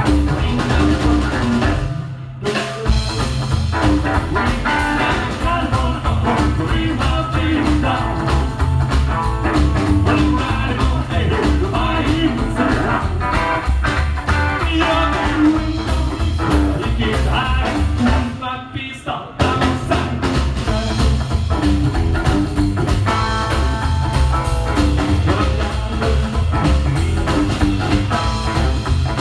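Rock band playing live, with drum kit, bass and guitar. The band drops out briefly twice, about two seconds in and again around nineteen seconds in, before coming back in.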